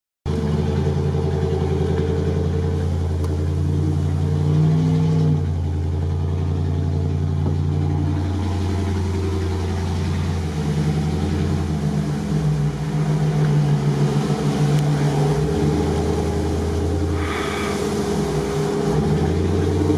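Dodge Ram pickup's engine running under changing load, its pitch stepping up and down as it drives through mud. There is a brief rush of noise near the end.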